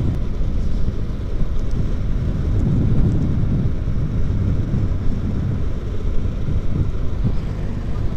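Wind rushing over the microphone with tyre and road noise from a motorcycle rolling along asphalt. Its blown engine is silent: the bike is being pushed along by foot from another scooter.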